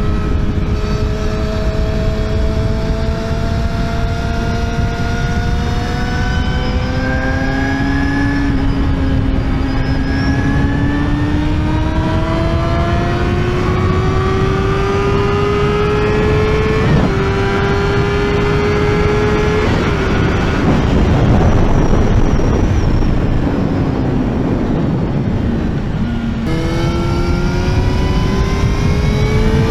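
Yamaha YZF-R6's inline-four engine pulling hard on the move, its pitch climbing slowly, with a gear change about seventeen seconds in. For several seconds after that, rushing wind mostly covers the engine. Near the end, after another shift, the engine climbs again, with wind noise on the microphone throughout.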